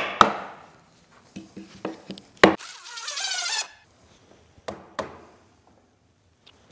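Two sharp wooden knocks, then a few lighter taps. A cordless drill then runs for about a second, driving a screw to fasten a guide board to the log. Near the end there are two more clicks.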